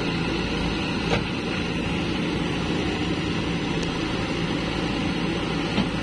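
JCB backhoe loader's diesel engine running steadily while the backhoe arm is worked, with two short knocks, one about a second in and one near the end.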